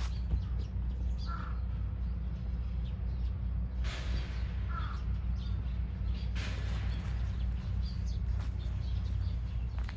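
Outdoor ambience with a steady low rumble and bird calls: two short calls about a second and five seconds in, over faint high chirping.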